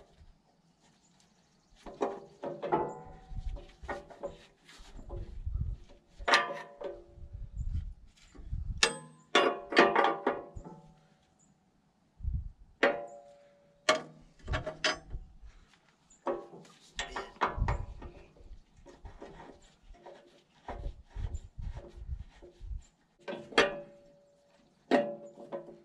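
Steel wrench clanking against the backhoe's steel mounting frame and fittings while they are loosened: irregular metallic knocks, many of them ringing briefly, with a dense run of clanks around ten seconds in.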